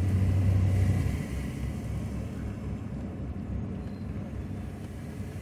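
Chevrolet Silverado pickup heard from inside the cab while driving slowly: a low engine hum fades out about a second in, leaving a steady low road and running noise that slowly grows quieter.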